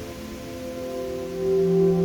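Background music of sustained, held chords, which shift and swell louder with a deeper note entering about a second and a half in.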